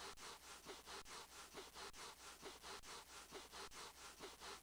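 Cartoon sound effect of a dog's feet scuffing rapidly over carpet, a rhythmic scraping at about five strokes a second that cuts off abruptly at the end. The scuffing is the dog building up a static charge.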